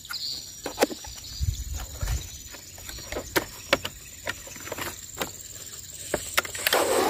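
A cardboard product box being handled and opened by hand: scattered sharp clicks and taps of the lid and packaging, a couple of dull thumps about two seconds in, and a short rustle near the end as the lid comes free.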